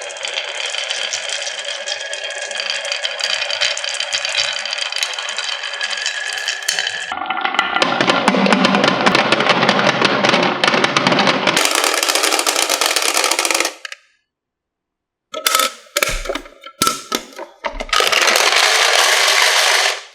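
Many marbles rolling and clattering down a HABA wooden marble run, a dense, continuous rattle. It stops abruptly about two-thirds of the way through, a few separate clicks follow, then the rattle starts up again.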